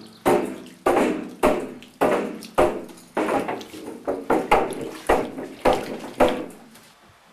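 Curdled sheep's milk in a large metal vat being stirred and broken up with a wooden stick: a rhythmic slosh and splash of curd and whey, about two strokes a second, that fades out near the end.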